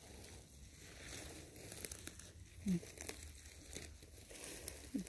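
Light crackling and rustling of dry twigs and lingonberry shrubs on a forest floor as someone moves through them, with many small scattered clicks.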